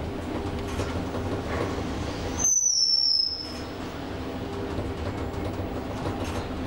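Inside the car of a 2009 OTIS Gen2 machine-room-less traction lift travelling down: steady ride noise with a low hum. About two and a half seconds in, a brief high-pitched tone, falling slightly in pitch, lasts just under a second.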